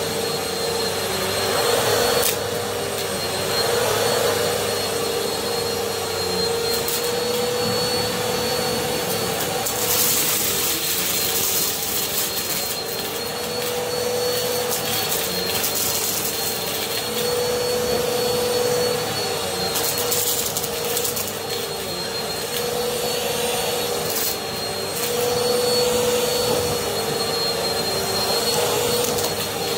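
Bissell Swivel upright vacuum cleaner running steadily on carpet as it is pushed back and forth, with a steady motor hum and a thin high whine, and a few short bursts of hiss along the way.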